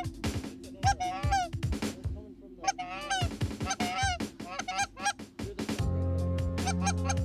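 Geese honking, a run of short rising calls repeated every second or so, over background music. About six seconds in the music swells with a steady deep bass and held chords.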